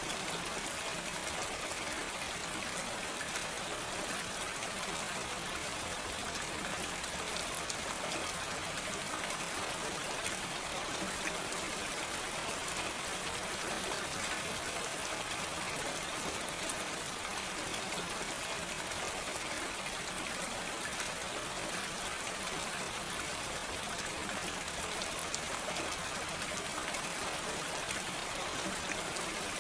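Steady gentle rain with no thunder: an even hiss of falling rain with many small drop ticks, unchanging throughout.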